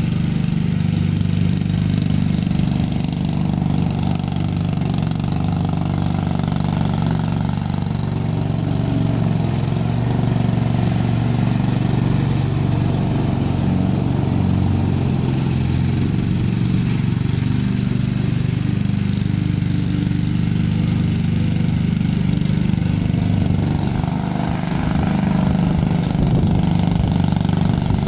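Craftsman lawn mower's small gasoline engine running steadily.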